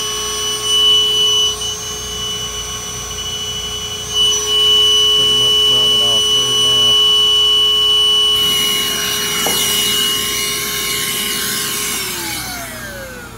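Wet/dry vacuum running with a steady whine while it sucks on the end of an air conditioner's clogged condensate drain line. About two-thirds of the way in, a louder rushing hiss joins. Near the end the motor is switched off and its whine falls in pitch as it winds down.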